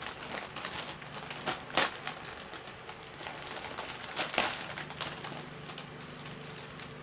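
Plastic bags of Lego pieces crinkling and rustling as they are handled, in a run of small crackles with louder bursts about two seconds in and again a little past four seconds.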